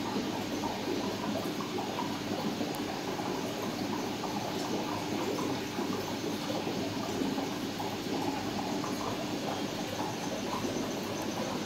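Aquarium filter running: a steady rush and trickle of circulating water with a faint steady hum underneath.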